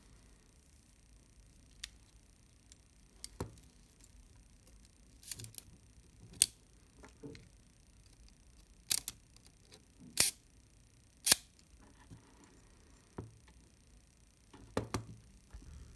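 Sharp mechanical clicks from the Plaubel Makina 67's leaf shutter mechanism as it is worked by hand during repair, about a dozen at uneven intervals, the loudest around the middle.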